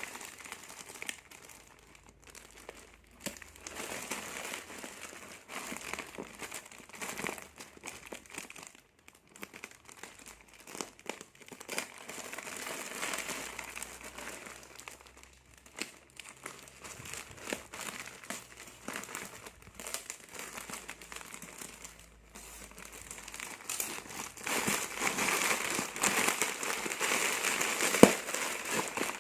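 Plastic packaging of a large snack parcel crinkling and rustling as it is handled and unwrapped, in irregular bursts that grow louder near the end, with one sharp snap.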